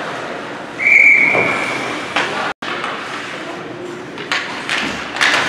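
A referee's whistle blown once, a steady high note held for about a second, over a background of spectators' voices and scattered knocks from play.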